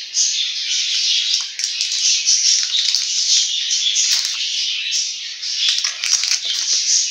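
Many small birds chirping busily and continuously, with a few light clicks on top.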